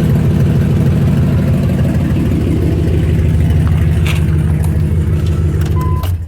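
Dodge Ram pickup engine idling loudly with a rapid, pulsing exhaust leak: the rusted exhaust flange at the manifold has broken, so the pipe no longer seals against the donut gasket. The engine is shut off and stops suddenly near the end.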